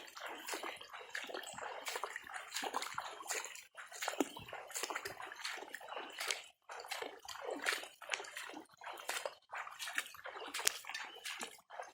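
Floodwater sloshing and splashing in quick, irregular bursts.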